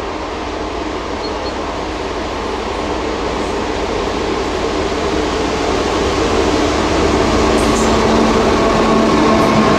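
DB class 241 diesel locomotive with its 16-cylinder engine running under power, approaching at the head of a freight train. Its drone grows steadily louder as it draws near, with a steady engine tone standing out in the last couple of seconds.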